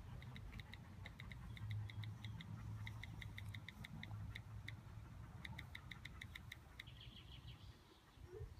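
Faint iPhone keyboard clicks from typing a text message: quick irregular ticks, several a second, in short runs, stopping about seven seconds in.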